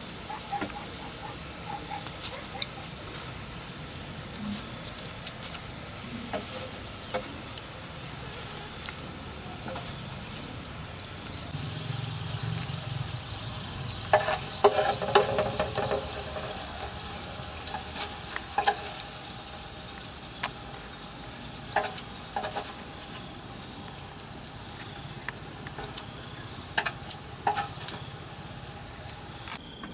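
Potato slices sizzling in a large flat pan over a wood fire, with light clicks and scrapes of chopsticks turning them. About halfway through, a louder pitched sound cuts in for a couple of seconds.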